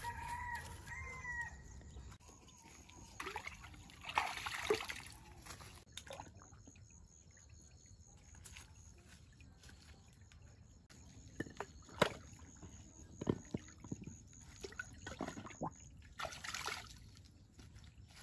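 A rooster crows once at the start. Then a big fish splashes and thrashes in a shallow concrete ditch of water, in two noisy bursts with a few sharp knocks between them.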